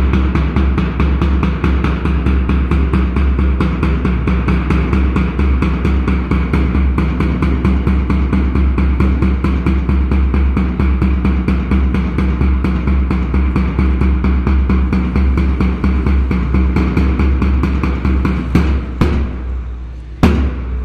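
Fast, even drumming, about five strokes a second, over a low steady hum. Near the end it gives way to a few single heavy bass drum strikes that ring out.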